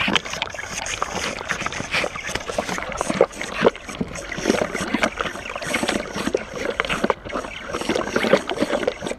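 Newborn calf sucking milk from a bottle's rubber nipple, heard from right at the bottle: a steady run of irregular wet sucks, clicks and gurgles.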